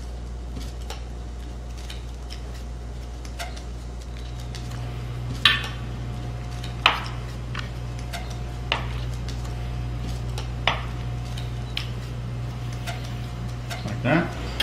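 Chef's knife slicing mozzarella and knocking down onto a cutting board, a few sharp knocks a second or two apart, over a steady low hum.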